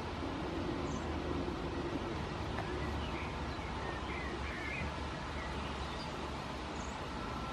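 Steady outdoor background noise with a low rumble, and a few faint bird chirps about three to five seconds in.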